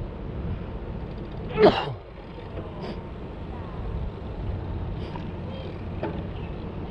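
Steady low rumble of wind and traffic on the microphone while cycling, broken about one and a half seconds in by one short, loud burst falling steeply in pitch: a person sneezing.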